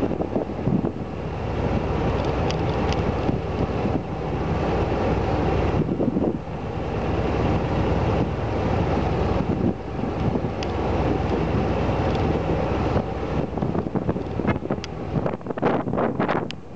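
Wind buffeting the microphone over a steady low mechanical rumble during a ferry disembarkation, with a cluster of sharp clicks near the end.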